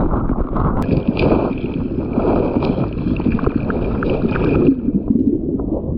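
Muffled water sloshing and bubbling heard through an action camera's microphone held underwater in a bathing pool. A steady high tone sounds from about a second in until nearly five seconds.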